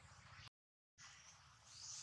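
Near silence: faint outdoor background with a few soft high chirps, cut by a short gap of total silence about half a second in.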